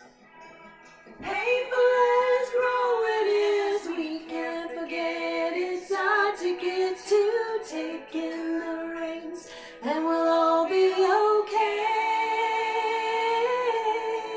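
A woman singing solo in long, held notes. The singing starts about a second in after a brief hush, with a short pause for breath about ten seconds in.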